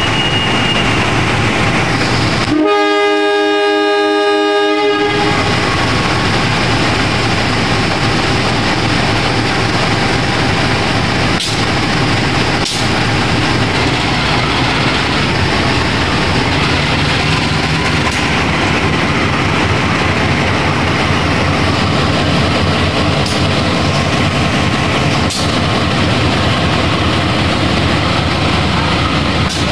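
CC 203 diesel-electric locomotive sounding one horn blast of about two and a half seconds a couple of seconds in, over the steady running of its diesel engine as it moves its train of coaches off. A thin high whistle fades out in the first second, and a few sharp clicks come later.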